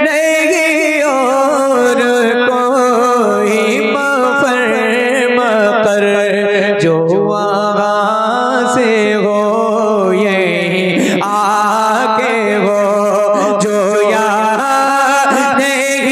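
A man singing a naat in long, drawn-out melodic phrases, the pitch wavering and bending with a rising glide partway through.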